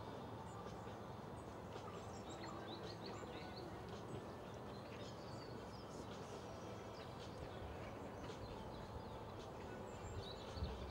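Faint outdoor ambience: many small birds chirping over a steady low rumble, with a single low thump near the end.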